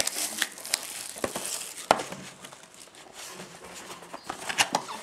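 Plastic shrink-wrap crinkling on a sealed trading-card box as it is unwrapped and handled, with scattered sharp clicks and taps of the cardboard box; the loudest snap comes about two seconds in, and a quick run of crackles near the end.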